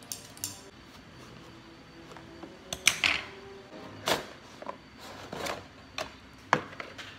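Cardboard figure packaging being cut and opened: two quick scissor snips at the start, then box flaps pulled apart and an inner cardboard box slid out, with scattered sharp cardboard clicks and scraping rustles.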